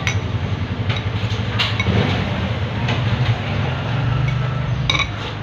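Steady low rumble with a few sharp clinks of tableware, the last near the end.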